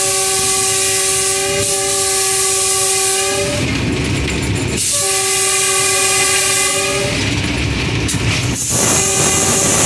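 A diesel locomotive's multi-tone air horn, heard from inside the cab, sounding a long blast of about three and a half seconds, a shorter blast of about two seconds after a short gap, and a fainter third blast starting near the end, over the steady running noise of the locomotive.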